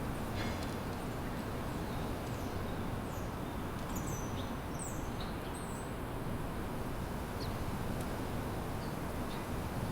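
Small songbirds giving short, high chirps, several in quick succession about three to six seconds in and a few single ones later, over a steady low background rumble.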